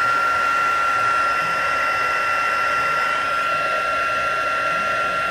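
Craft heat tool running steadily: a high whine over rushing hot air, blown over wet texture molding paste to dry it.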